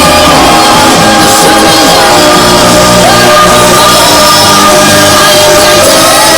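Loud live dance music from a concert sound system, with shouted or sung vocals over it; the recording runs near full scale.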